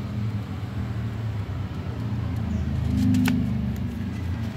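Low steady motor-like rumble that swells and peaks about three seconds in, with a brief crackle of paper as a folded certificate is opened in the hands.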